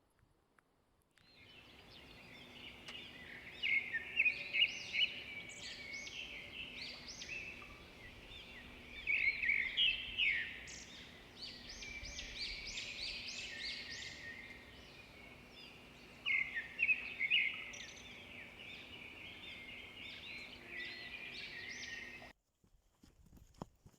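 Birds chirping and singing in a busy chorus of short high notes, swelling louder three times, over a faint steady hum; it starts about a second in and cuts off abruptly near the end.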